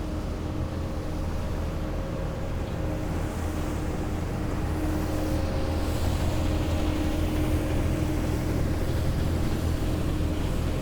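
Heavy military vehicle engines running as the column drives past, a steady low drone that grows gradually louder.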